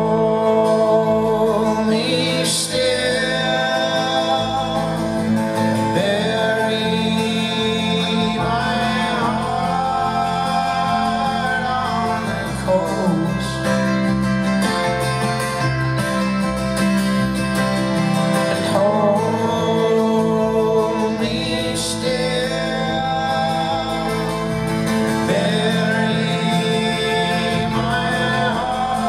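Live acoustic folk-rock music: a strummed acoustic guitar with a band behind it, and a man's voice singing lines at several points.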